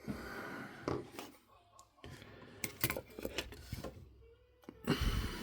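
Small plastic and metal parts of a portable MiniDisc recorder being handled on a work surface: a series of light clicks and taps, with a louder knock near the end.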